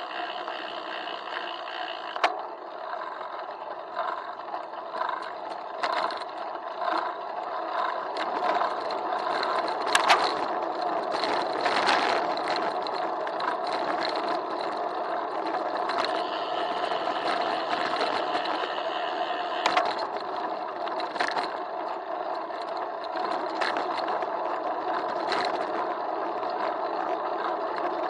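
Bicycle riding along a city street, recorded by a camera in a waterproof housing on the handlebars: steady tyre and road noise with frequent knocks and rattles as the bike goes over bumps, the loudest about ten and twelve seconds in.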